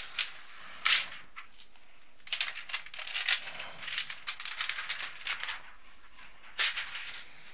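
Protective plastic film being peeled off the back of a tablet, crinkling and crackling in several short clusters of sharp clicks and rustles.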